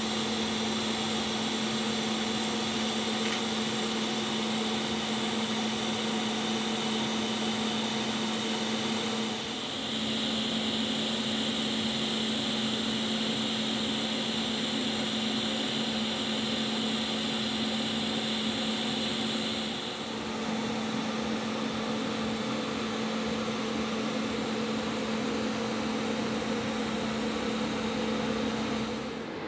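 TIG welding on a titanium exhaust tube: a steady hiss and hum from the arc and shielding gas. The sound dips briefly and shifts in tone about ten seconds in and again about twenty seconds in.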